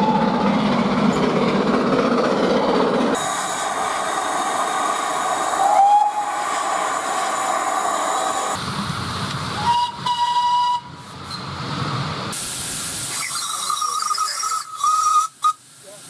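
A run of short steam-train clips: a steam train running in, then three separate steam whistle blasts, each about a second long, with steam hissing between them. The first whistle comes from a full-size steam locomotive and the last, higher one from a miniature live-steam locomotive.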